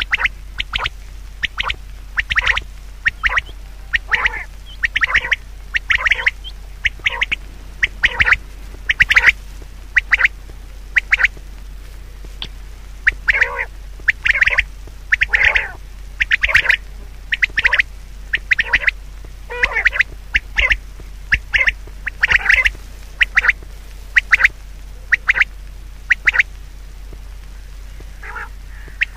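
A bird's repeated short, harsh calls in irregular runs of several a second, with pauses of a second or two between runs, over a steady low hum.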